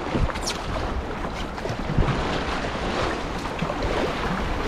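Whitewater rushing steadily around a moving canoe, with wind buffeting the microphone and a sharper thump about two seconds in.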